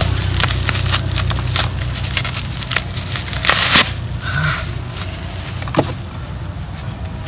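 Plastic bubble-wrap bag crinkling and crackling as hands work it open and slide a phone box out, with one louder crinkle about three and a half seconds in.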